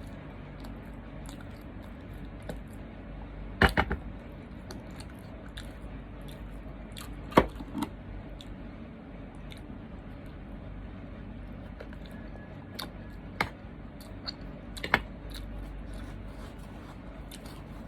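A person eating a meal of rice and boiled egg, chewing, with a few sharp clicks and knocks, the loudest about 4 and 7.5 seconds in, over a steady low hum.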